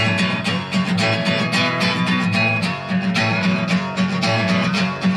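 Steel-string acoustic guitar strummed in a steady, quick rhythm: a short instrumental passage in a live folk/blues-rock song.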